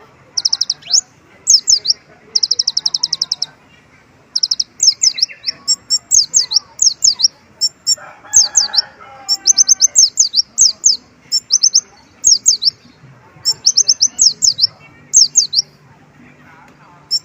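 Kolibri ninja sunbird singing in short, fast bursts of high chirps and trills with brief pauses between them, its song filled with mimicked Oriental white-eye (pleci) phrases.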